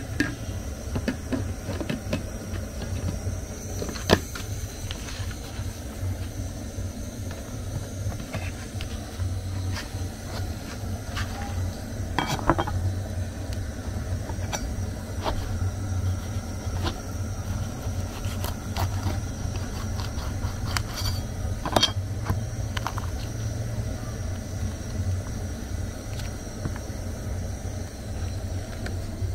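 Roasted goat meat being handled and torn apart by hand on a wooden cutting board, with scattered sharp knocks and clicks over a steady low rumble.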